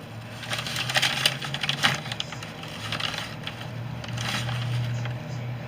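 Rustling, crackling and scraping close to the microphone, like handling noise, busiest in the first two seconds, over a steady low hum.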